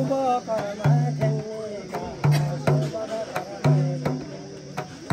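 Large hand-held frame drum beaten in an uneven rhythm, each stroke ringing out in a low boom, with a voice chanting in long wavering tones over it.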